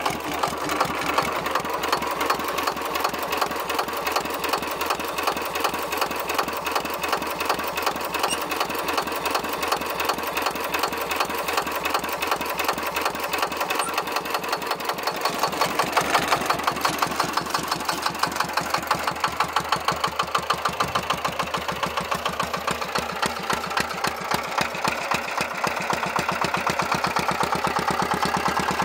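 Lister Petter PAZ1 single-cylinder diesel on a homemade garden tractor, running steadily with an even, regular beat of firing strokes.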